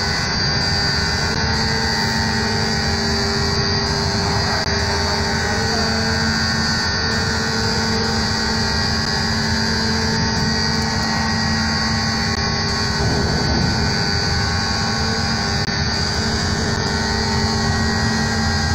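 Steady, loud mechanical drone on a ferry's vehicle deck, from engines and machinery running, with several steady hums and no change in level.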